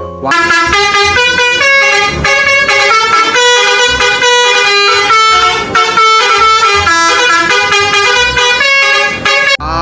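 Telolet bus horn, a multi-tone musical air horn, playing a tune of held notes that step up and down in pitch, cutting off shortly before the end.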